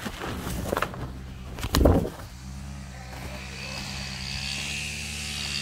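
Steady low motor drone, like an engine running at an even speed, with a loud rustling thump of the camera being handled about two seconds in.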